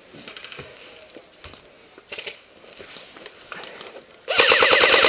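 Gear and clothing rustling faintly for about four seconds, then a loud full-auto burst from an airsoft AK-74M replica: a rapid rattle of shots over a whirring tone, starting near the end.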